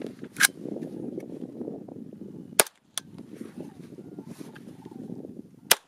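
Four sharp gunshot cracks: one about half a second in, two close together near the middle, and one near the end. Under them runs a steady rumble of wind on the microphone.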